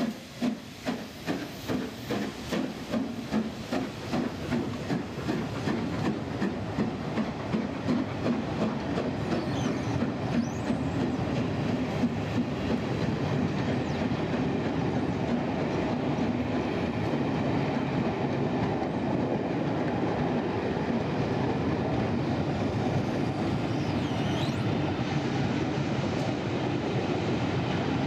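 LMS Princess Coronation class Pacific 46233 Duchess of Sutherland pulling away with its train, the exhaust beats coming about twice a second and quickening slightly over the first twelve seconds or so. Then the coaches run past with a steady noise of wheels on the rails.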